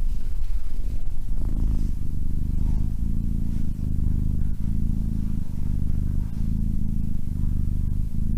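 Domestic cat purring close to the microphone: a loud, steady low rumble that pulses with its breathing, roughly once a second.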